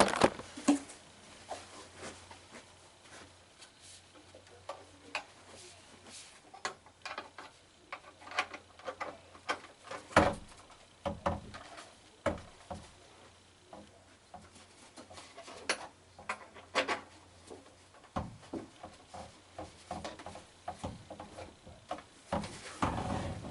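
Irregular taps, knocks and rustling from hands working on a life-size animatronic werewolf prop and its costume, with one louder knock about ten seconds in.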